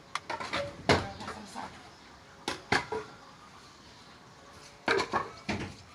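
Timber being handled by hand: a series of sharp wooden knocks and clatters, about eight in all, coming in clusters with the loudest about a second in.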